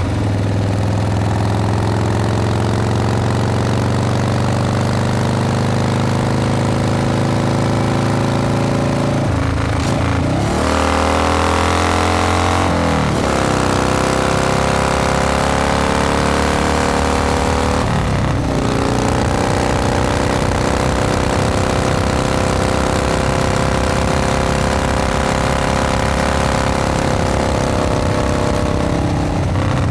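Harley-Davidson Panhead V-twin motorcycle being ridden at speed, its engine running steadily with wind rushing past. The engine pitch dips and climbs again about ten seconds in, again a few seconds later, and again around eighteen seconds.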